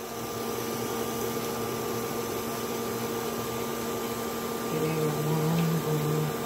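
A steady mechanical hum with a few fixed tones in it, from a running kitchen machine. About five seconds in, a lower steady tone joins in short steps for a second and a half.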